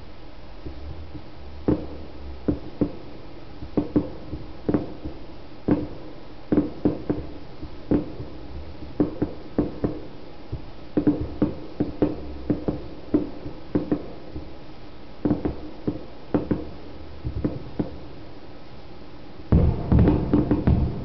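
Fireworks shells bursting: a string of irregular booms, roughly one or two a second, ending in a dense barrage of overlapping bangs.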